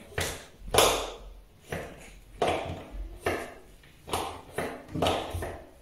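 About nine uneven taps and knocks, each with a short ringing tail: a finger pressing again and again at the hydromassage bathtub's power button on the acrylic rim. The button is slow to respond, so the jet pump has not started.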